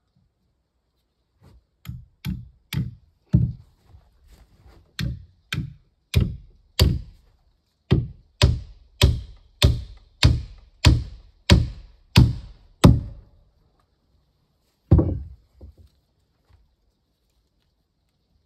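Repeated heavy blows on wood, about one every two-thirds of a second, some seventeen in all with a short break midway, then a single last blow after a two-second pause.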